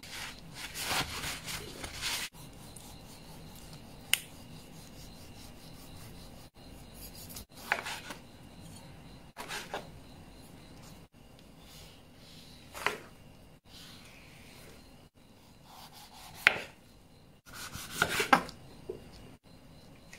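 Kitchen food-prep handling: about two seconds of rubbing against paper towel, then half a dozen separate sharp knife cuts and taps on a cutting board, spaced a few seconds apart, with a cluster near the end.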